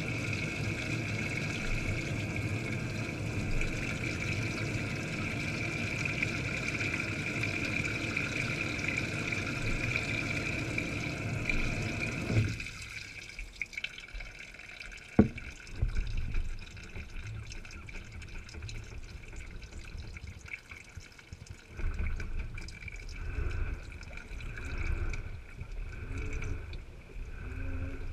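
Washing machine heard from inside its tub, with the microphone underwater among the laundry. A steady rushing of water runs until about twelve seconds in and then cuts off suddenly. A single sharp click comes a few seconds later, followed by irregular sloshing and low thumps as the wet load moves.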